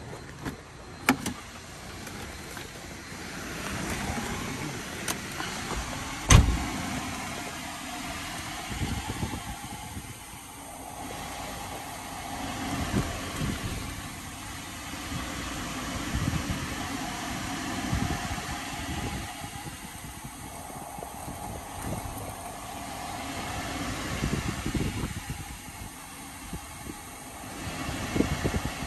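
Mercedes-Benz SLK 320's 3.2-litre V6 and road noise of the car on the move, swelling and easing every few seconds. There is a sharp thump about six seconds in.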